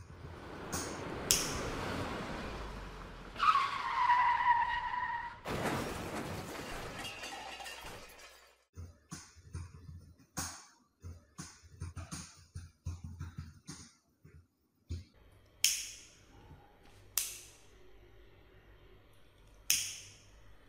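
Sound effects: a rush of noise, a loud squeal that falls in pitch, then a short broad crash-like burst. These are followed by a long run of scattered sharp clicks and ticks.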